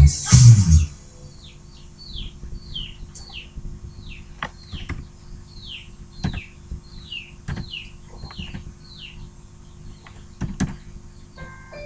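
Music cuts off about a second in, then a bird chirps over and over: short, high, downward-sliding chirps about two a second, with a few sharp clicks between them. A new song starts near the end.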